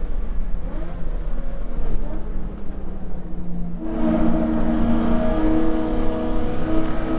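Holden VK Commodore's 308 V8 heard from inside the car at racing pace. The note is lighter off the throttle with a brief rise about a second in, then about four seconds in the engine comes back hard on the gas with a strong, steady note.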